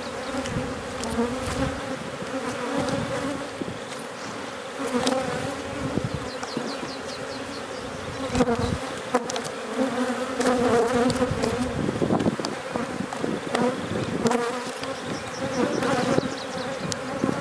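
Honey bees buzzing in a steady droning hum around an opened hive, with a few light clicks.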